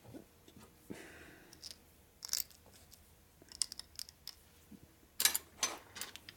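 Light, scattered clicks and scrapes of small metal pump parts being handled on the bench, with a cluster of sharper clicks about five seconds in.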